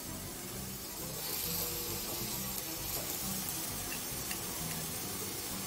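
Bacon slices sizzling in a hot, lightly oiled frying pan, the sizzle growing louder about a second in as more bacon goes into the pan. Quiet background music plays underneath.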